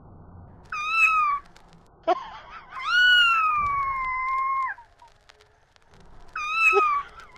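Domestic cat meowing three times: a short call, a long drawn-out meow, then another short call.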